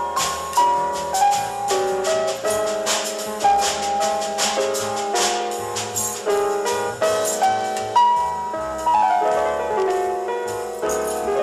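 Soul-jazz band recording in an instrumental passage: a melodic line of quick notes, with falling runs near the end, over bass and drums with cymbals.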